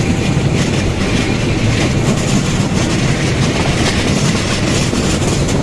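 Bangladesh Railway passenger train running at speed, heard from the open door of a moving coach: a steady loud rumble and clatter of the coaches' wheels on the track.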